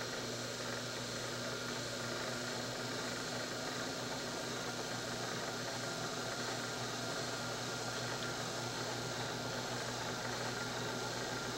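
Small electric motor of a homemade light-projection machine running steadily, a constant hum under an even hiss.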